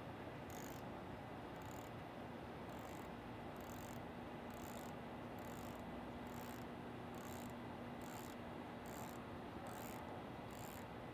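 Faint clicking of a socket ratchet's pawl in short, regular bursts, about three every two seconds, as the ratchet backs out a loosened hex screw.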